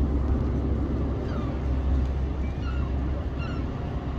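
Steady low rumble of outdoor traffic and wind noise, with many short, high, falling bird chirps scattered over it.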